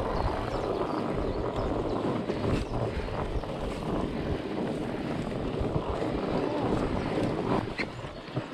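Wind rushing over the microphone and a mountain bike's tyres rolling over a dirt singletrack, with scattered small clicks and rattles from the bike. It gets a little quieter near the end.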